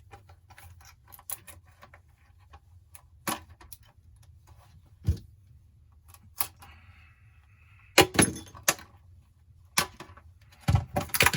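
Scattered clicks, taps and clinks of small repair tools and the phone being picked up and set down on a work surface, with a quick cluster of knocks about eight seconds in and another near the end.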